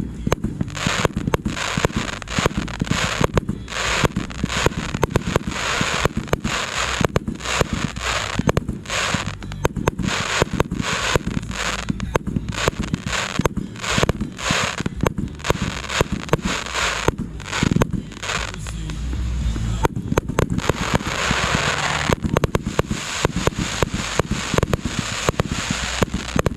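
Fireworks going off in a dense, unbroken barrage: many sharp bangs in quick succession over continuous crackling.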